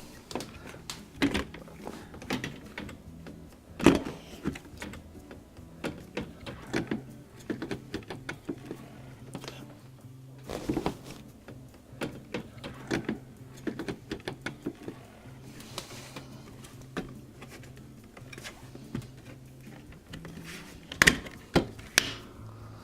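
Scattered plastic clicks, taps and knocks of a dishwasher touchpad and control panel being handled and pressed into place, with a sharper knock about four seconds in and a cluster near the end. A steady low hum runs underneath.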